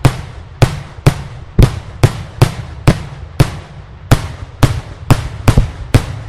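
Daylight fireworks display: a rapid, even series of loud explosive bangs, about two a second, each followed by a short echo.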